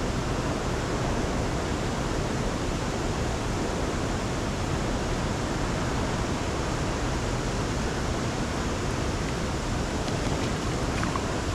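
Steady, even rushing noise with no distinct events: outdoor roar of moving water and wind around the boat.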